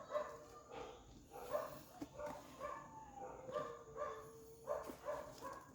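A dog barking repeatedly and faintly in the background, about two short barks a second.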